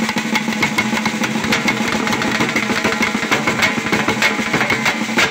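Folk drums beaten in a fast, dense rhythm over one steady low droning tone; both stop abruptly at the end.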